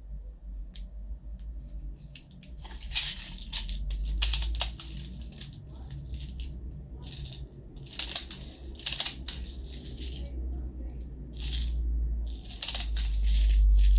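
Airsoft BBs rattling and clicking as they are loaded into a gas blowback pistol magazine, in several bouts of quick rattles.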